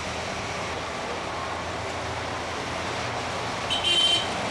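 Steady engine hum and road noise inside a moving city bus. A brief, loud, high-pitched squeal cuts in about four seconds in.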